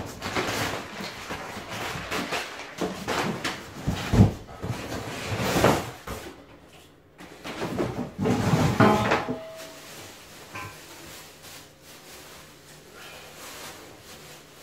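Cardboard box being torn open by hand: flaps ripped and pulled back, with scraping, rustling and sharp knocks. The handling is busiest for the first ten seconds, then dies down to faint rustles.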